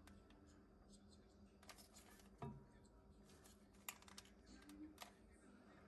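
Near silence: a faint steady low hum with a few scattered faint clicks and taps.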